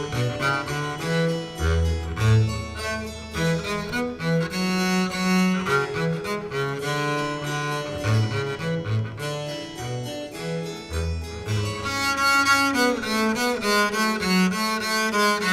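Bowed-string music with a cello to the fore: a low line moves under higher melody notes, changing note several times a second.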